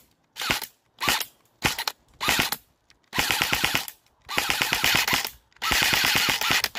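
M4-style airsoft rifle firing: four short bursts about half a second apart, then three longer full-auto bursts of about a second each, a fast, even rattle of shots.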